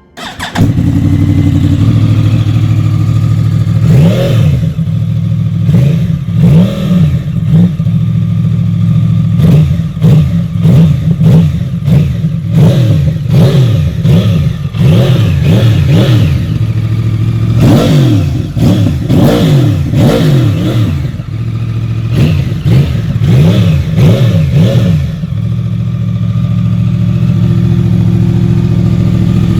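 Yamaha R1 RN22's crossplane inline-four with a full Akrapovic exhaust idling, then revved in a long series of quick throttle blips, each rising and falling, before settling back to a steady idle near the end.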